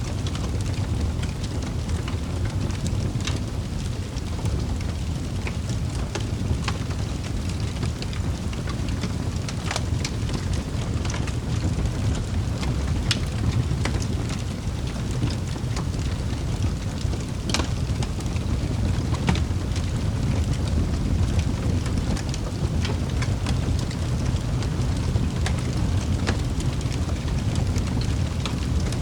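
Wood fire burning in a fireplace: a steady low rush of flames with scattered sharp crackles and pops from the burning logs.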